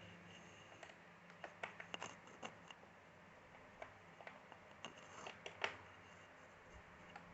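Faint, irregular clicks and light taps of hand work on the underside of a laptop, with a small screwdriver and the bottom cover being loosened.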